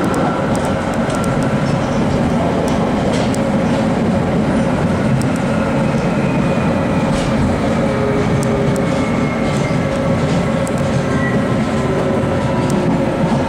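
London Underground Jubilee line 1996 Tube Stock train running, heard from inside the carriage: a steady rumble of wheels on rail with scattered clicks over the rail joints. From about halfway, a motor whine falls slowly in pitch as the train slows on its approach to the next station.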